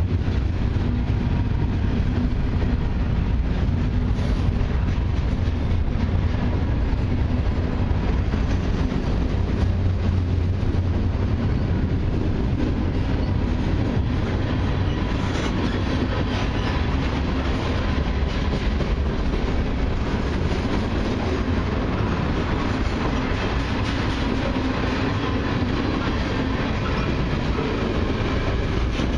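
Freight train cars rolling past close by, gondolas and then tank cars: a steady rumble and clatter of steel wheels on the rails.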